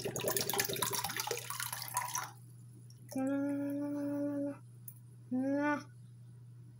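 Water poured from a can splashing into a bathroom sink for about two seconds. Then a person hums one held note and, a moment later, a short rising note.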